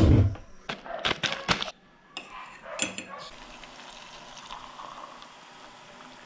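A few sharp clicks and knocks in the first two seconds or so, then hot water pouring steadily into a ceramic mug of coffee with a metal spoon standing in it.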